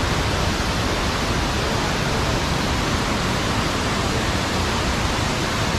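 A large cascading waterfall, its water rushing down over rocks in a loud, steady, unbroken noise.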